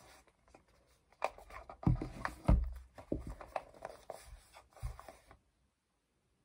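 Small cardboard boxes handled and pulled open by hand: scraping and rubbing of card, with a few knocks against the table, loudest about two and a half seconds in. The handling stops about five seconds in.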